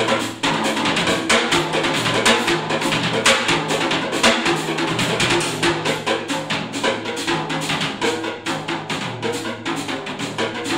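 Live jazz trio of hollow-body electric guitar, electric bass and drum kit playing, the drums prominent with dense, fast strikes on snare, bass drum and cymbals over steady bass notes.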